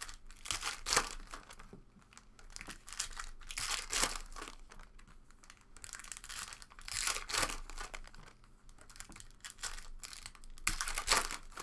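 Foil trading-card pack wrappers crinkling and tearing as they are handled and opened, in several irregular bursts of rustling, each a second or so long.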